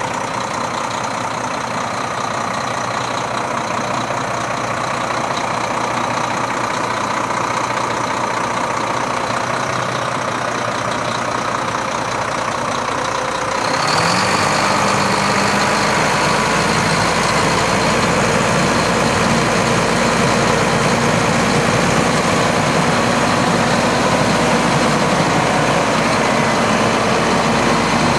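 Renault Premium hooklift truck's diesel engine running steadily. About halfway through, the revs climb quickly and hold higher, and it gets louder.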